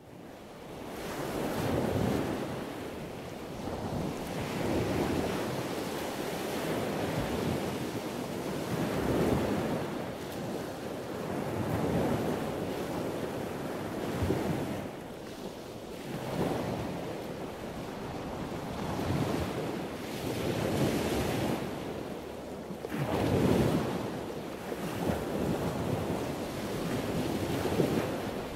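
Wind buffeting the microphone: a rushing noise that swells and eases every two to three seconds.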